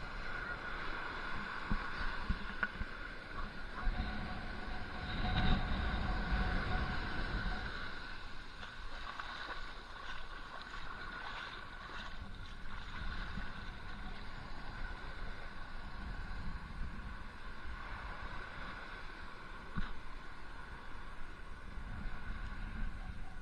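Seawater sloshing and lapping around a waterproof action camera held at the surface, with a louder surge about five to seven seconds in.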